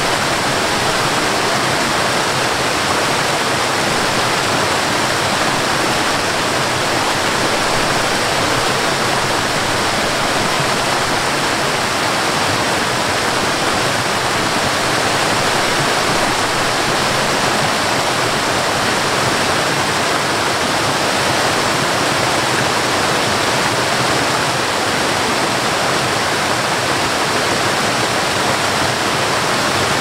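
Flowing forest water rushing steadily: an even, unbroken hiss with no changes over the whole stretch.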